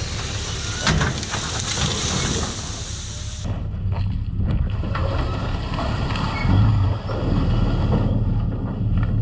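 Diesel engine running steadily, with a couple of heavy thumps, one about a second in and one near seven seconds.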